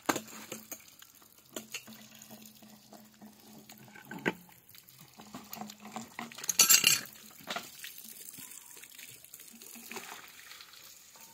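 Plastic compression fittings and a pipe wrench knocking and clicking as they are worked onto a polyethylene water pipe, with water splashing from the line. There is a short, louder rush of water about six and a half seconds in.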